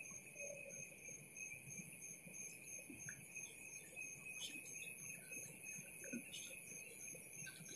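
Night insects calling steadily in several high, unbroken pitches, one of them pulsing, over faint low background noise.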